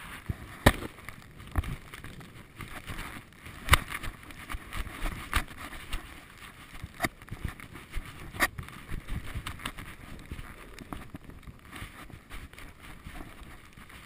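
Handling noise on the microphone of an action camera with its lens covered: irregular sharp knocks and rubbing over a low rumble, with about five louder knocks spread through.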